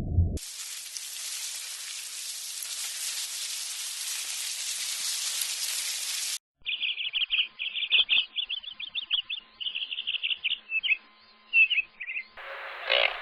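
A steady even hiss for about six seconds, then a small bird chirping in fast, high runs of notes for about six seconds.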